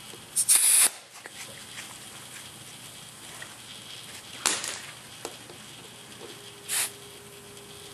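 Short hisses of compressed air from an air chuck topping up a riding mower's front tyre: three bursts, the longest about half a second in, the others near the middle and near the end.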